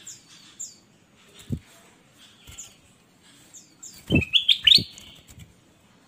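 Ruby-throated bulbul giving short, high chirps that slide downward, then a louder quick run of chirps about four seconds in. A few dull thumps fall among them, one about a second and a half in and two during the louder run.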